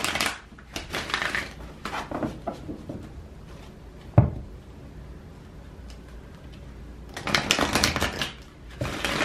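A deck of oracle cards being shuffled by hand, in short rustling bursts with pauses between them. A single sharp knock about four seconds in.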